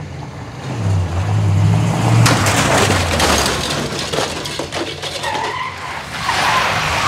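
Old pickup truck's engine running and revving as it pulls in. A louder noisy rush of tires skidding on gravel comes about a second in and lasts a couple of seconds.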